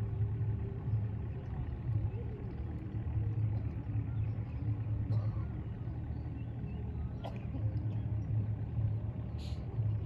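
An engine runs with a steady, low, slightly throbbing rumble, with a few faint high chirps and clicks over it.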